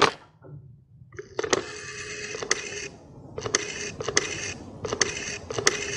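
Telephone being dialled: a click as the receiver is lifted, then a rotary dial turned and whirring back with clicks, three times in a row.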